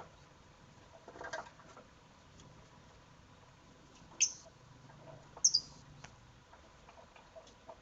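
Lovebirds giving two short, shrill chirps, about four seconds in and again a second later, among light scattered clicks and a brief rustle.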